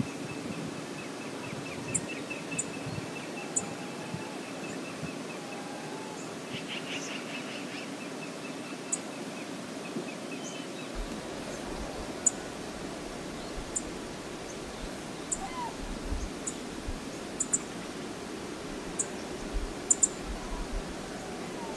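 Steady outdoor hiss of a flowing river on an open-air wildlife-camera microphone, with faint high chirping bird calls in the first half and scattered small ticks. A low rumble joins about halfway through.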